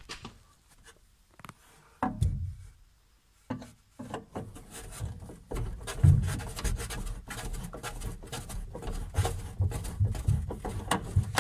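A hand tool turning the adjustment screw on a sliding wardrobe door's bottom roller, setting the door's height to close its gap against the frame. A few clicks and a knock, then from about four seconds in several seconds of scraping and knocking of metal on the screw and the wooden panel.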